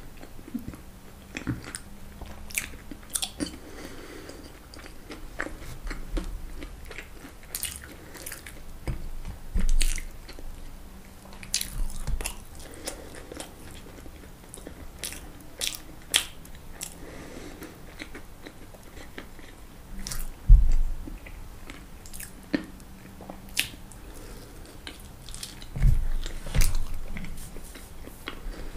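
Close-miked eating of crisp fried food: irregular crunchy bites and chewing with sharp crackles, and a few heavier low thumps about twenty seconds in and again near the end.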